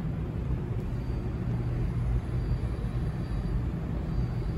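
Low, steady rumble of a subway train moving in the tunnel, heard from an underground station platform.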